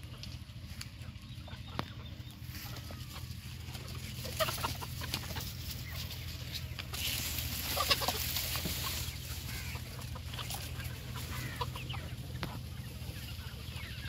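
A flock of chickens, hens and roosters together, clucking. Many short calls overlap, busiest between about four and nine seconds in.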